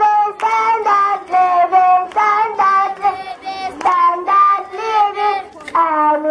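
A young child singing into a handheld microphone: held, gliding notes in short phrases with brief breaks between them.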